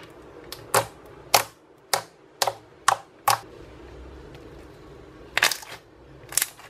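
Homemade white glue slime being pressed and stretched by hand, giving sharp wet pops and clicks. There are about six pops roughly half a second apart, then a short pause, then a quick cluster of pops and one more near the end.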